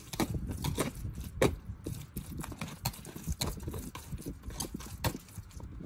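Wire whisk stirring raw beef strips in a plastic tub: irregular clicks and taps of the wires against the plastic over a wet, squishing mix.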